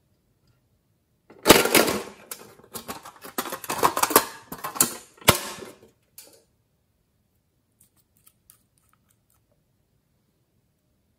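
Hands handling a hard plastic slime container lid and a glass nail-polish bottle: a few seconds of clattering, clicks and scrapes with one sharp click about five seconds in, then a few faint ticks.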